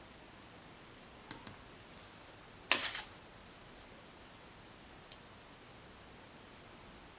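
Sparse light clicks and taps of wooden craft sticks being handled and pressed into place, with a louder short plastic clatter near the middle as a hot glue gun is set down on the table.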